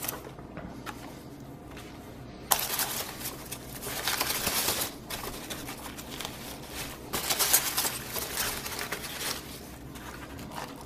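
Hands rummaging through polystyrene packing peanuts in a cardboard box, rustling in two spells of a couple of seconds each, starting a couple of seconds in and again about halfway through, while a small bubble-wrapped part is dug out.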